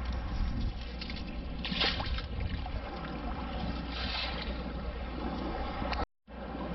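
Water splashing and draining through a perforated titanium sand scoop as it is lifted and shaken to sift out the sand, with louder splashes about two and four seconds in, over a steady wash of water. The sound drops out briefly near the end.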